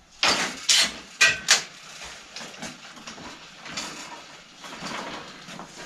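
A bicycle being handled on a workshop repair stand: a few sharp metallic clanks and rattles in the first second and a half, one with a short squeak, then quieter rattling and knocking.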